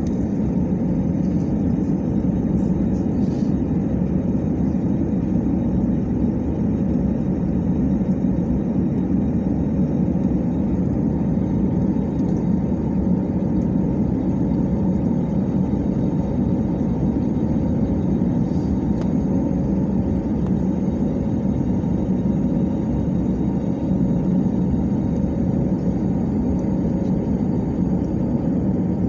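Steady engine and airflow noise inside a jet airliner's cabin during the climb after takeoff, a deep, even rumble that holds at one level throughout.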